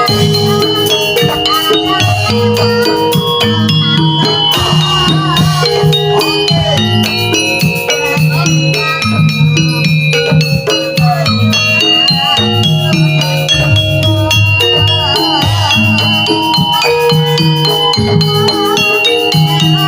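Javanese jaranan music on gamelan instruments: many short pitched metallic notes over a repeating low bass pattern, with a wavering melody line now and then.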